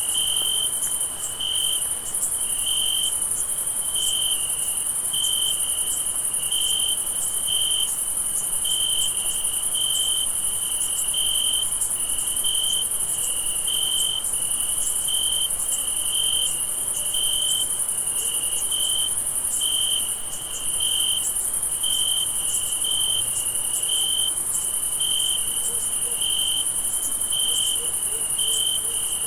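Night chorus of crickets: a continuous high-pitched insect trill, with a lower cricket chirping steadily about once a second over it.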